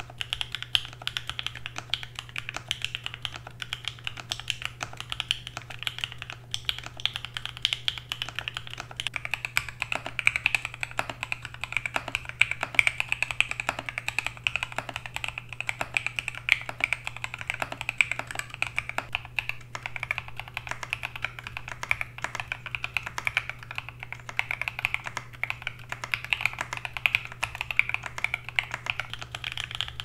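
Slow, steady typing on an Av3 mechanical keyboard with an FR4 plate and lubed HHHH H1 linear switches (Durock 62 g springs, Krytox 205g2, films), a rapid irregular run of keystroke clicks. The keycaps alternate between Cherry-profile ABS doubleshots and KAT-profile PBT. A steady low hum runs underneath.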